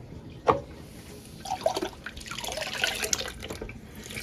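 Glass jars being put into a pan of water on the hob: one knock about half a second in, then water splashing and dripping as the jars go in.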